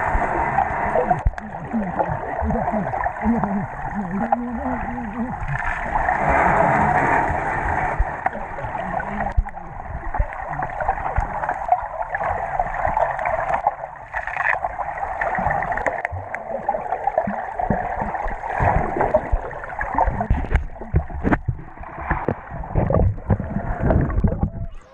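Swimming-pool water heard underwater through a GoPro's waterproof housing: a muffled, steady churning and gurgling of water stirred by people moving nearby, with small knocks throughout.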